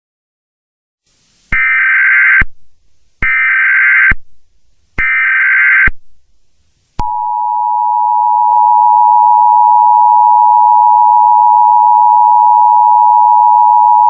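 Emergency Alert System broadcast from a DASDEC encoder: three bursts of SAME header data, each about a second long, encoding a severe thunderstorm warning. About seven seconds in, the steady two-tone EAS attention signal (853 and 960 Hz) begins and holds without a break.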